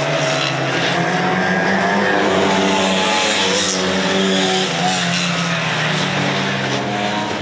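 A pack of rookie rod racing cars passing on a wet oval track, several engines running hard at once with overlapping pitches that bend slightly, over a steady hiss of tyres throwing spray from the wet surface.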